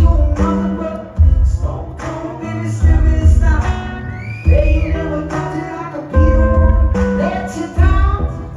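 Rock band playing live: distorted electric guitar and drums under a sung lead vocal, with heavy low hits about every second and a half.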